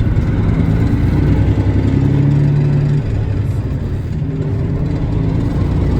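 A vehicle's engine humming steadily with road rumble while driving on the highway; the engine note shifts about three seconds in.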